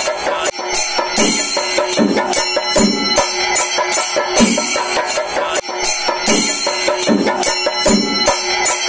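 A Kerala chenda drum ensemble playing a fast, dense rhythm, with a heavier low beat about every three-quarters of a second.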